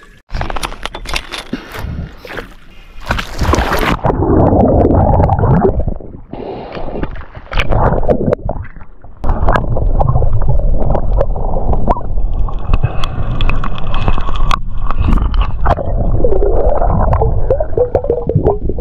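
A few sharp knocks in the first seconds, then muffled underwater gurgling and rushing water noise picked up by a camera below the surface.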